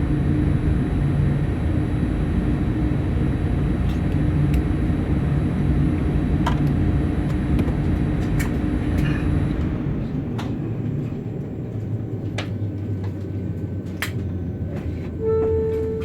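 Boeing 787-8 cabin noise: a steady mechanical hum with scattered clicks. About ten seconds in the hum drops and thins, and a short held tone sounds near the end.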